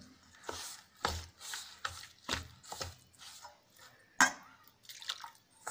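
A spoon stirring damp semolina and curd in a steel bowl, scraping and knocking against the bowl in irregular strokes, with one sharper knock about four seconds in.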